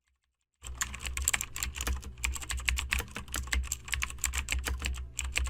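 Computer keyboard typing: a fast, uneven run of key clicks over a low steady hum, starting about half a second in.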